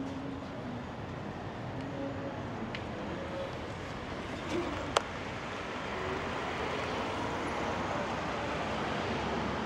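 Steady city street traffic noise that swells a little after about six seconds, with one sharp click about five seconds in.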